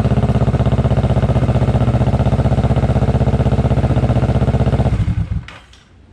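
Kawasaki Vulcan S 650's parallel-twin engine idling steadily with an even pulse through an Orion full-system aftermarket exhaust, then stopping about five seconds in. A few faint ticks follow.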